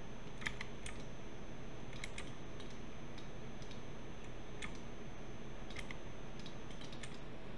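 Irregular, scattered clicks of a computer mouse and keyboard, about a dozen in all, over a steady low background hum.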